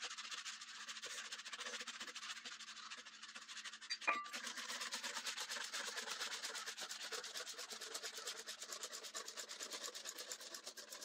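Kitchen handling played at four times speed: a wire whisk scraping round a small cup, then a fast, even rubbing rasp. A single clink about four seconds in, as a metal measuring cup is set down.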